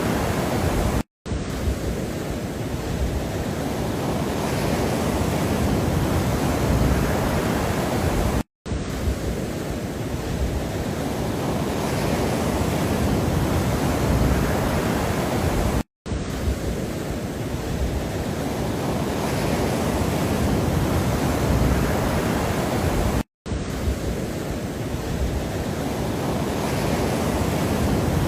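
Steady, loud rushing noise from a looped relaxation track. It drops out to silence for a split second four times, about every seven and a half seconds.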